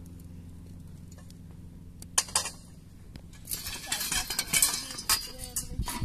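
Metal tent-frame poles clinking and rattling against each other as they are picked up and handled, with a couple of sharp clanks about two seconds in and a busy run of clatter through the second half.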